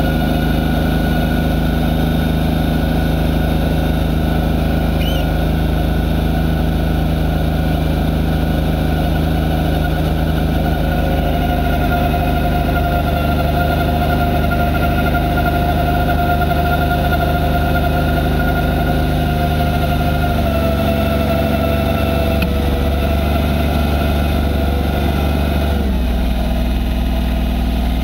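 Massey Ferguson 1020 tractor's diesel engine running steadily under load, driving a PTO snowblower that is throwing snow, heard from inside the cab. The engine note shifts about twenty seconds in and again near the end.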